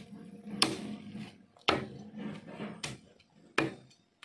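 A kitten chewing a chicken scrap: sharp crunches, four of them about a second apart, over a low background hum.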